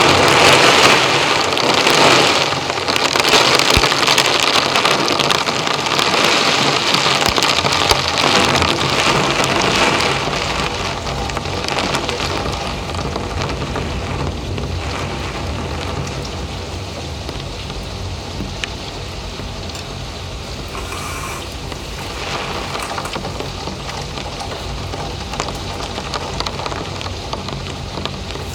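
Storm wind rushing steadily, loudest over the first ten seconds and then easing off a little.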